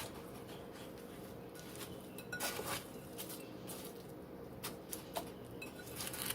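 Cube steak being pressed and turned in a dish of crushed cracker and flour coating: faint scattered crunches, rustling and light taps against the dish, over a faint steady hum.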